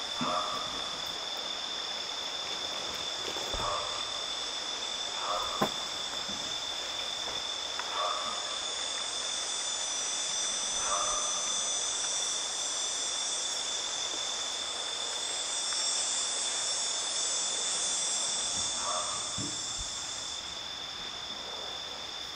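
Steady insect chorus, a continuous high-pitched trill, with a few faint short knocks and chirps scattered through it. A higher hiss joins about eight seconds in and cuts off about twenty seconds in.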